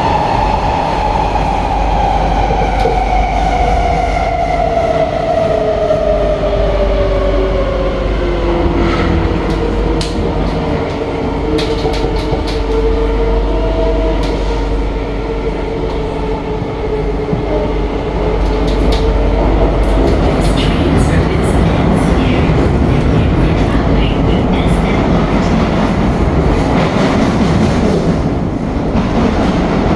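Interior running noise of a C151B MRT train: a steady rumble of wheels on rail with the traction motors' whine falling in pitch over the first ten seconds as the train slows. The whine then levels off and fades, and the rumble grows louder over the second half, with scattered light clicks.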